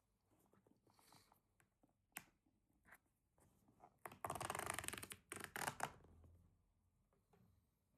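Product packaging being handled during an unboxing: a few faint clicks and taps, then a burst of rustling and scraping about four seconds in, lasting under two seconds.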